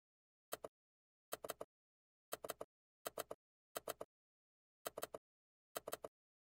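Short clusters of sharp clicks, seven in all, each a quick run of three or four clicks, coming about once a second with dead silence between.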